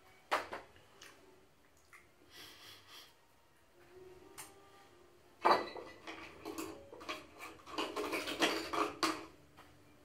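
Paintbrushes clinking and rattling against a glass jar as a brush is picked out of it: one sharp clink near the start, then a loud run of clattering from about five and a half seconds to nine.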